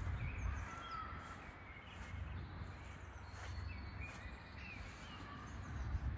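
Several birds calling with short chirps and whistles, some of them caws, over a steady low rumble.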